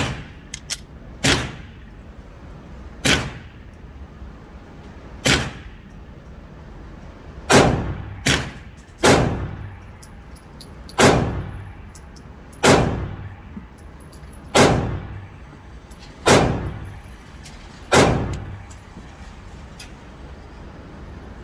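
Smith & Wesson M&P9 Shield Plus 9mm pistol firing about a dozen single shots, spaced roughly one to two seconds apart. Each shot has a short echoing tail from the indoor range.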